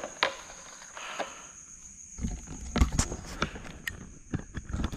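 Handling noise: a couple of sharp clicks as a handheld radio and flashlight are picked up, then from about two seconds in a run of irregular knocks, rubs and low thumps as the camera is moved, over a faint steady high tone.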